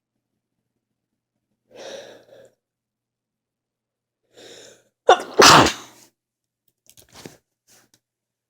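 A person sneezes once, loudly, about five seconds in. Two quieter breathy sounds come before it, and a few faint short sounds follow.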